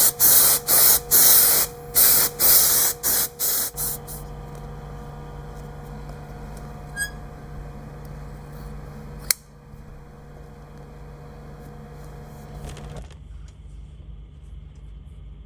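Contact-adhesive spray gun hissing in a quick run of short bursts for about four seconds, laying glue on upholstery foam and leather, then stopping. A quieter steady hum follows, with one sharp click partway through, and the hum cuts off near the end.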